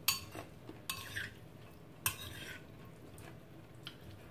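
Metal spoon stirring and tossing a dressed cucumber salad in a ceramic bowl, clinking against the bowl's side a few times about a second apart between soft scraping.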